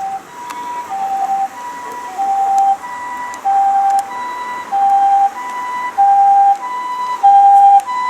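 Japanese ambulance siren, driven by a Patlite SAP-520RBV amplifier, sounding its two-tone high-low "pee-poh" pattern, a full high-low cycle about every 1.3 seconds. It grows steadily louder as the ambulance comes closer.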